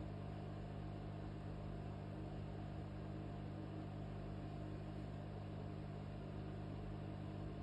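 Steady low hum with a few constant low tones and a faint hiss, unchanging throughout, with no clicks or other events.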